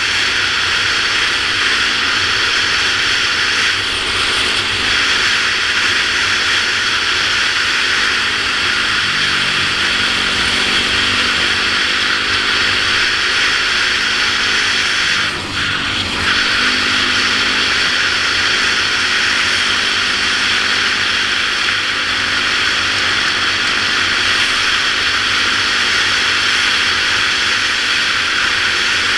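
Yamaha YZ450F single-cylinder four-stroke dirt bike engine running at steady cruising speed, heard from the rider's helmet camera under heavy wind rush. The sound dips briefly about halfway through.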